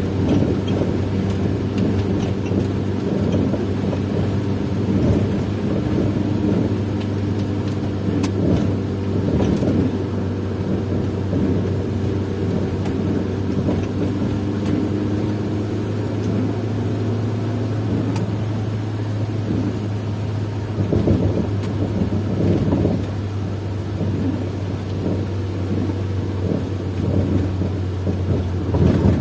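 A car's engine and road noise heard from inside the cabin while driving on a wet road. A steady low hum holds its pitch for the first two-thirds, then turns less even.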